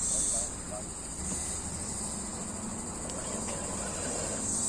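Insects chirring in a steady, high-pitched drone that swells briefly near the start and again near the end.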